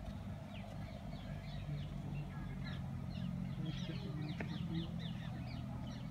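Many birds chirping in the trees, a dense chorus of short, quick, falling chirps overlapping one another, over a low steady hum.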